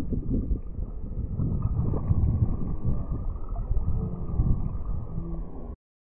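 Muffled, choppy sloshing of seawater around a camera bobbing at the surface, dull and low with no crisp splashes. It cuts off abruptly near the end.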